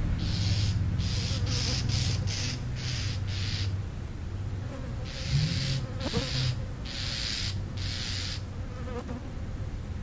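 Insect buzzing close to the microphone as a low, steady drone, over a series of short hissy pulses that repeat about twice a second.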